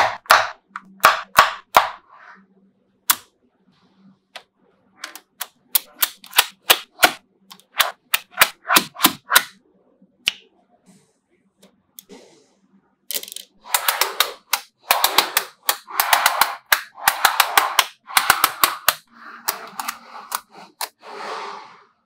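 Small neodymium magnetic balls snapping and clicking together as blocks and panels of them are set onto the model, in sharp irregular clicks. From about 13 s to 19 s the clicks crowd into a rattling clatter as a panel of balls is handled and pressed into place.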